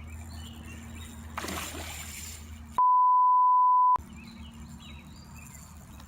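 A steady, pure, edited-in beep tone lasting about a second, starting a little under three seconds in. All other sound is cut out beneath it, as in a censor bleep over a spoken word. Around it is quiet riverside ambience with a low hum.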